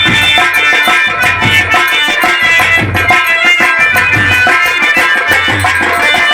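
Nautanki folk instrumental: a harmonium plays a sustained reedy melody over fast, dense hand-drum strokes, some of whose low notes bend in pitch.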